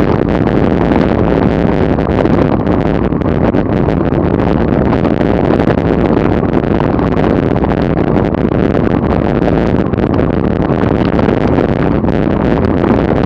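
Steady, loud wind rush on a camera microphone travelling at about 30 mph, mixed with the hum of tyres on tarmac.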